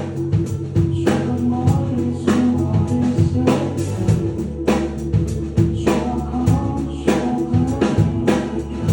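Band music with a drum kit and bass, with singing.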